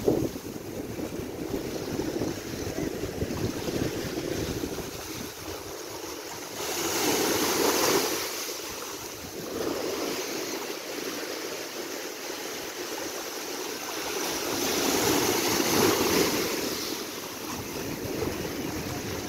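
Small sea waves washing in against shoreline rocks, a continuous wash of surf that swells twice, about seven and fifteen seconds in, as larger waves break and drain back.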